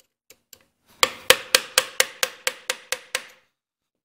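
A hammer strikes a screwdriver against metal: two light taps, then about ten sharp strikes at about four a second, each with a short metallic ring. This is the screwdriver being driven to bend back the locking tabs on a Clinton engine's connecting rod cap bolts so the piston can be removed.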